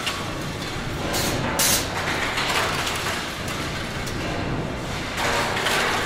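Industrial factory ambience in a basement scrap area under stamping machines: a steady machinery rumble with a low hum, broken by two louder bursts of hissing noise, about a second in and again near the end.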